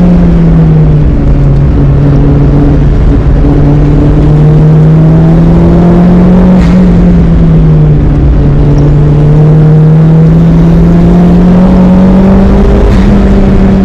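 Mazdaspeed MX-5's turbocharged 1.8-litre four-cylinder engine running hard at high revs on track, loud and unbroken, its pitch sagging and climbing again a couple of times.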